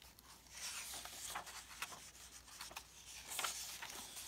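Hands rubbing across and turning the paper pages of an open hardback book: faint rustling with a few light taps.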